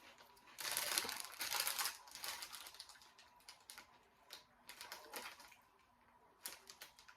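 Crinkling and crackling of a potato chip bag being handled: a dense burst about half a second in, then scattered short crackles and clicks.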